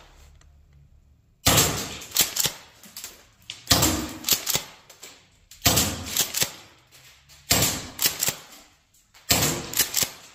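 Golden Eagle M870 green-gas pump-action airsoft shotgun being fired in 3-shot burst mode, five shots about two seconds apart. Each shot is a short cluster of sharp cracks and clacks.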